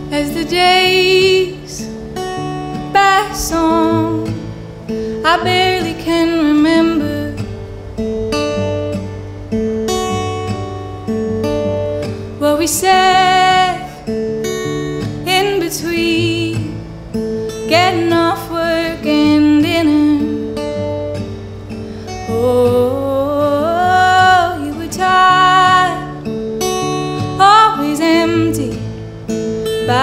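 A woman singing a song in phrases over her own strummed acoustic guitar.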